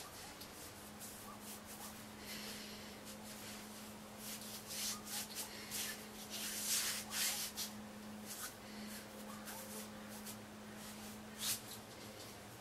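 Faint scattered rubbing and rustling noises over a steady low hum, busiest around the middle with one sharper scrape near the end.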